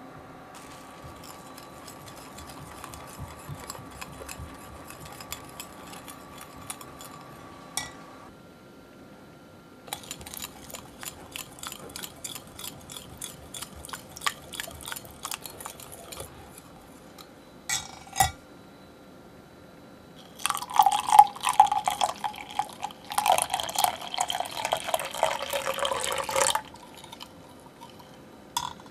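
Liquid poured into a Pyrex glass measuring cup of gelatin mixture and stirred with a metal utensil that ticks and clinks rapidly against the glass. It is loudest from about two-thirds of the way in.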